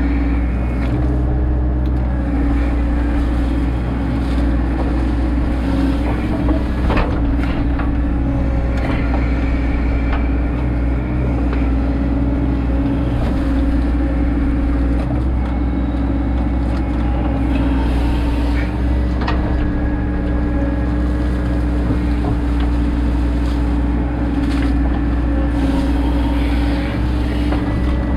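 Cat backhoe loader's diesel engine running steadily while digging, with a few sharp clanks from the working equipment.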